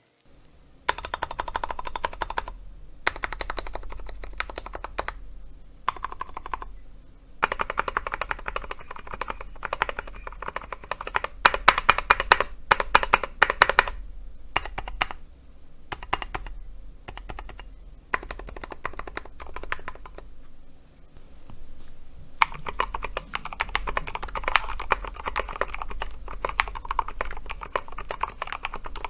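Typing on a custom KBD75 mechanical keyboard built with a brass plate, lubed Gateron Silent Ink Black linear switches and SA-profile PBT keycaps: bursts of fast keystrokes broken by short pauses, with sparser single keypresses a little past the middle.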